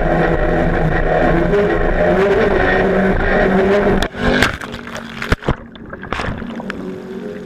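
Jersey speed skiff's racing inboard engine running at speed over rough water. About four seconds in the run breaks off with a sharp burst of splashing and several knocks as the boat goes over into the water. The sound then turns dull and muffled, heard from under water.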